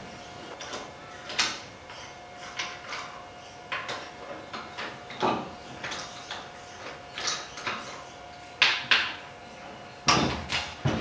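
Wheel nuts being undone with a hand wrench to remove a car's front wheel: irregular metallic clicks and clinks of the wrench and loose nuts, with a few louder knocks near the end.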